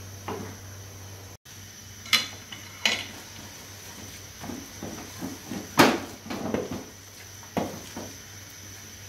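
Wooden masher pounding boiled chana dal and shredded chicken in an aluminium pot: a few sharp knocks of the wood striking the pot, the loudest about six seconds in, with softer thumps of the mash between. A steady low hum runs underneath.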